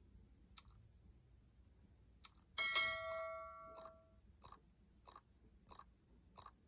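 A single ringing chime strikes about two and a half seconds in and dies away over a second and a half, followed by evenly spaced clicks, about three every two seconds, over a low steady hum.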